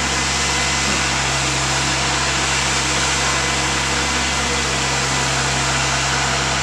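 Marine Travelift boat hoist's engine running with a steady drone as the lift carries a sailboat in its slings.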